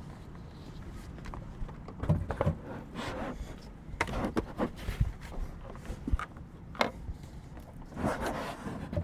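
Plastic knocks, bumps and scraping as a Bodega portable fridge-freezer is pushed and wedged against the edges of a car's sub-trunk, jamming because it is too big to go in. The handling noise starts about two seconds in and keeps going in irregular bumps.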